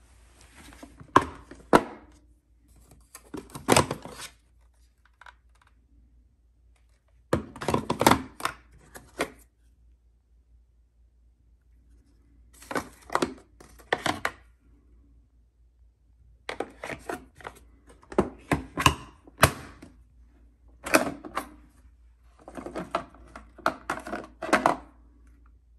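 Clusters of hard plastic clicks, knocks and rattles, in about eight short bursts separated by quiet gaps, as the parts of a canister vacuum are handled and fitted together; the motor is not running.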